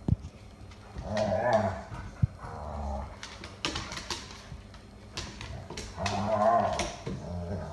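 Airedale terriers play-growling and snarling at each other in two rough bouts, about a second in and again near the end, with claws clicking and scrabbling on wooden floorboards in between.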